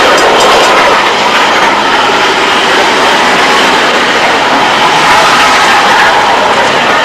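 Freight train rolling past, a loud steady noise of wagon wheels running on the rails.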